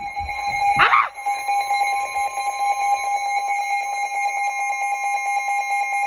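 Emergency Alert System attention signal: a steady two-tone alarm, announcing that a new alert, here a severe thunderstorm warning, is about to be read. A brief louder sound cuts in about a second in.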